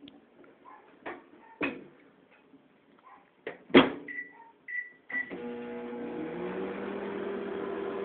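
Daewoo microwave oven being started: a few clicks and a loud clunk as the door shuts, three short keypad beeps, then the oven starts up about five seconds in and runs with a steady hum of several tones. It is set to heat for 30 seconds.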